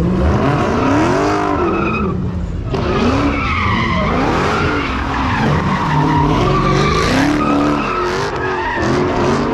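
Several muscle cars doing donuts: engines revving up and down over and over, overlapping one another, with tires squealing and skidding.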